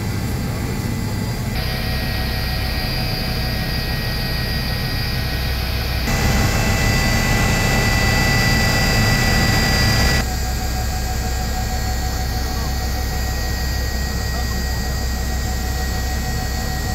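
Helicopter turbine and rotor noise heard inside the cabin: a steady noise with a high, constant whine. It shifts in tone abruptly about one and a half, six and ten seconds in, and is louder between about six and ten seconds in.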